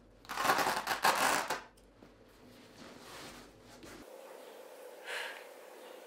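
Rolled yoga mat being handled by its strap and unrolled: a loud rustling swish lasting about a second. About five seconds in, a short breath out while stretching.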